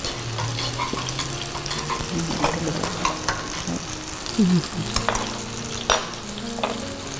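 Soy-based sauce simmering and bubbling in a small nonstick frying pan over a gas flame while it is stirred, first with a spoon and then with chopsticks, which click against the pan several times. Tapioca starch has just been stirred in to thicken the sauce.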